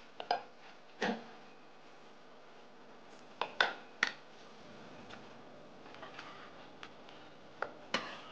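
A pot of thick beef satay broth simmering, with scattered short clicks and pops, the loudest about a third of a second in, at one second, in a quick cluster around three and a half to four seconds in, and again near the end.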